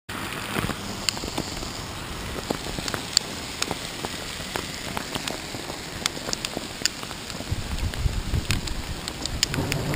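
Hailstorm: hailstones pelting down over a steady hiss, with many sharp ticks of stones striking close by. A low rumble joins in from about seven and a half seconds.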